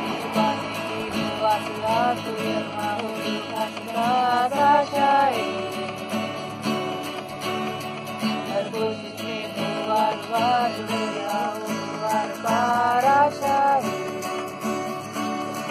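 Two acoustic guitars strummed together, with a man singing a wavering melody over them in phrases.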